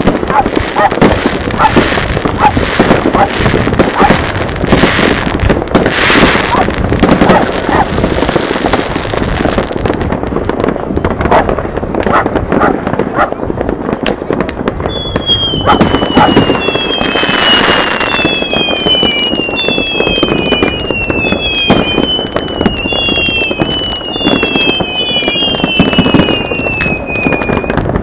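Many New Year's fireworks going off at once: a dense, continuous crackle of firecrackers and bangs. Over the second half comes a string of overlapping falling whistles, about one a second.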